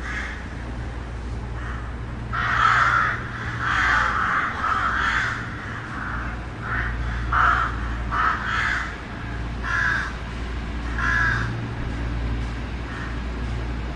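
Crows cawing, a run of about a dozen harsh caws from about two seconds in to about eleven seconds in, some in quick pairs and threes, over a steady low rumble of distant city traffic.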